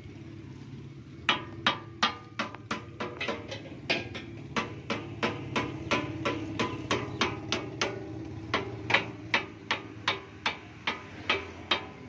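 Steady hammer blows on metal, about three a second, each with a short metallic ring, starting a little over a second in, over a low steady hum.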